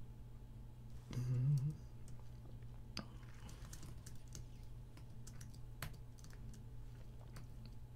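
Computer keyboard typing: scattered, irregular key clicks as code is entered. About a second in there is a short, louder low sound of the voice, like a murmur.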